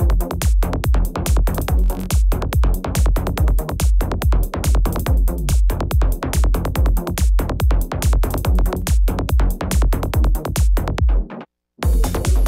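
Psytrance electronic dance music with a fast, steady kick drum and bass pulse. It cuts out to silence for about half a second near the end, then comes straight back in.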